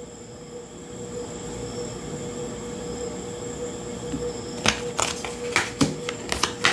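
Tarot and oracle cards being handled and laid down on a table: a quick run of sharp card snaps and taps through the last two seconds, over a faint steady hum.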